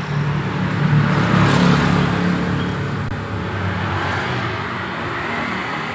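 A motor vehicle's engine running close by. It swells to its loudest about a second in, then fades slowly away, as a vehicle passing by does.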